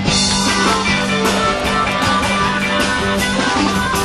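Live rock-and-roll band playing an instrumental break between sung verses, with guitar prominent over a steady drum beat.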